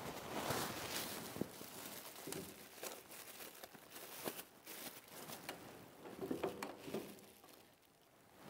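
Faint rustling and crinkling of handled material, with scattered light taps and clicks; it fades off near the end.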